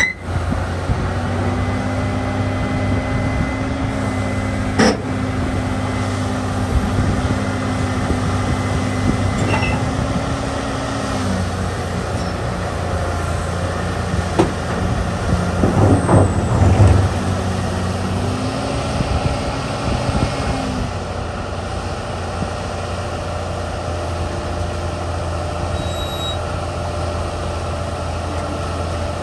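Liebherr 974 Litronic crawler excavator's diesel engine running steadily as the machine crawls along a steel lowbed trailer deck. A tone in its drone drops about a third of the way in and comes back up about two-thirds through. There is a sharp knock about five seconds in and a louder, rougher stretch just past the middle.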